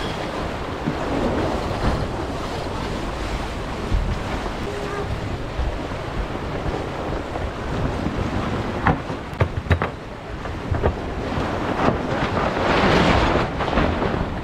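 Wind buffeting the microphone and water rushing past the hull of a racing sailboat running downwind, with a few sharp clicks about two-thirds of the way through and a louder surge of water and wind near the end.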